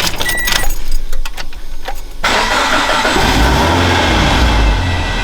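Supercharged Scion FR-S's flat-four engine being started: a couple of seconds of clicking and knocking, then the engine fires with a sudden loud rise a little over two seconds in and settles into a steady cold-start idle. It breathes through a freshly fitted HKS equal-length header, with no exhaust leak.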